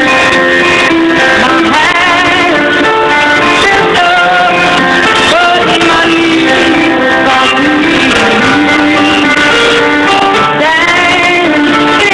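Music: plucked and strummed guitar under a melody line that bends and glides in pitch, like a singing voice, loud and continuous.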